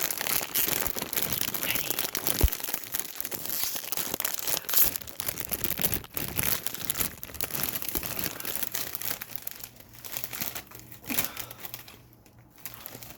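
Plastic chip bag of Doritos crinkling and crackling as it is handled and pulled open, a dense run of crinkles that thins out over the last couple of seconds.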